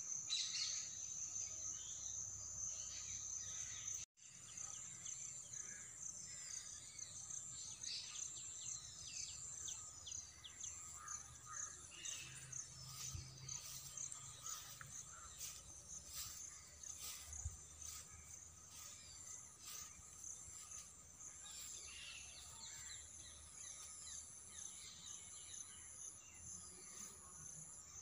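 Steady, high-pitched outdoor insect drone, with birds chirping in short falling calls through the middle stretch. The sound drops out for an instant about four seconds in.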